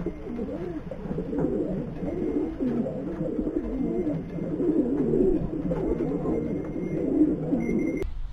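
Racing pigeons cooing inside the loft: overlapping, continuous low warbling calls that rise and fall in pitch.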